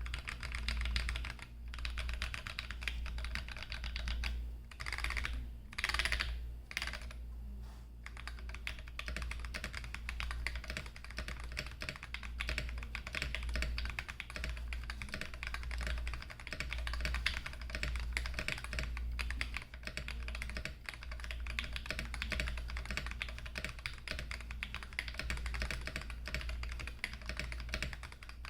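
Continuous typing on a custom 60% mechanical keyboard: MT3-profile keycaps on lubed, filmed Durock T1 tactile switches in a foam-modded Tofu60 case with an aluminium plate. A rapid, uneven run of key clacks, with a few louder flurries about five to seven seconds in, over a low steady hum.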